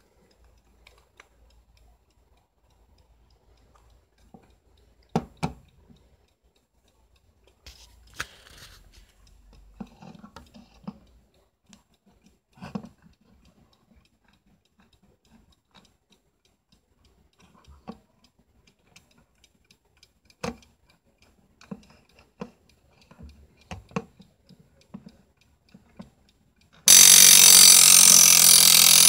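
Vintage Soviet Vityaz mechanical alarm clock being handled, giving scattered clicks and knocks; near the end its alarm goes off, a sudden loud continuous ring.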